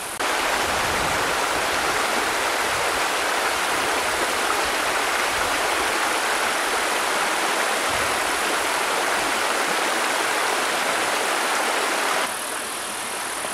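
Shallow stream rushing over rocks: a steady noise of flowing water, a little quieter near the end.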